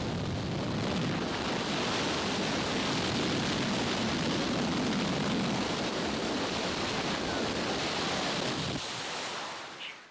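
Wind and engine noise rushing in through the open door of a skydiving plane in flight, a steady rush that buffets the microphone. It drops away about nine seconds in.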